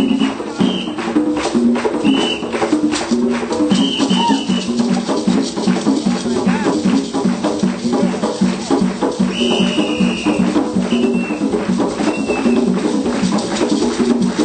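Live drum and percussion group playing a steady, fast rhythm on hand drums and shakers, with a pitched line below it and short high notes sounding now and then.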